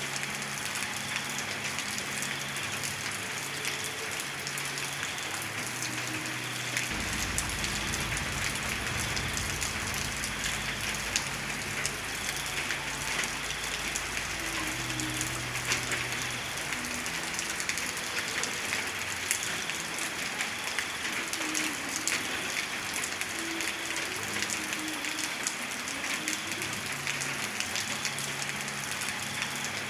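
Steady rain falling on a surface, with individual drops ticking through it. A low rumble comes in about seven seconds in and dies away about eleven seconds later.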